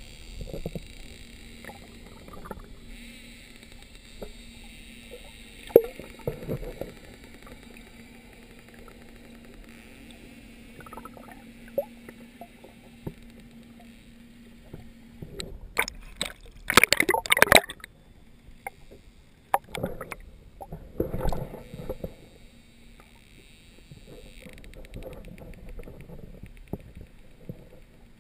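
Muffled underwater water noise, with sloshing and gurgling around a submerged action-camera housing and scattered knocks. A faint steady hum stops about halfway through. The loudest part is a cluster of crackling knocks a little past the middle, and a few more knocks follow.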